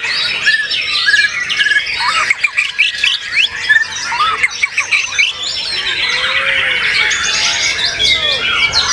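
White-rumped shamas (murai batu) singing together: a dense, overlapping jumble of rapid whistles, sweeping notes and harsh chattering from several birds at once.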